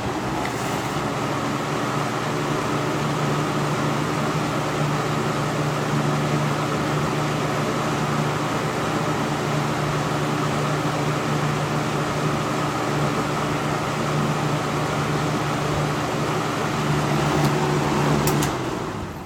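1985 Kmart K-223 20-inch box fan running: a steady rush of air over a low motor hum. Near the end a couple of clicks are heard and the sound falls away.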